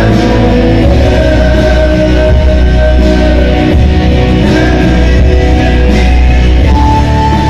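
Loud rock music with a man singing into a microphone, amplified through a PA speaker.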